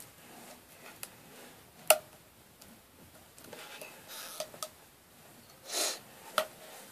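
Plastic glue bottle being squeezed and handled at a table: a few sharp clicks and knocks, the loudest about two seconds in, and a short hiss a little before the end.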